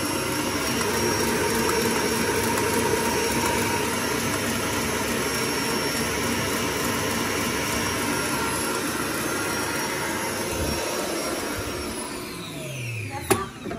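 Electric stand mixer running at full speed with its whisk beating a foam in the bowl, a steady whir. About twelve seconds in it is switched off and winds down with a falling pitch, and a sharp click follows near the end.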